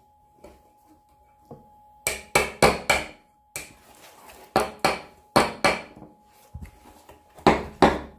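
Red plastic toy hammer striking a toy chisel held against a plaster dinosaur excavation block: about a dozen sharp taps in quick bunches of two to four, with short pauses between bunches.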